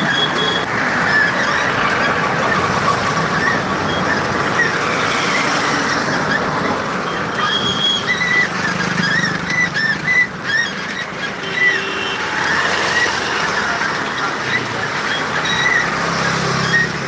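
Steady traffic and road noise from riding along a street, with many short, high squeaks scattered through it.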